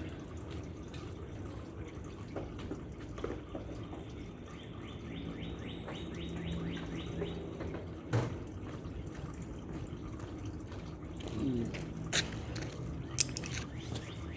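Used engine oil dripping and trickling steadily as it drains, with a few sharp knocks in the second half.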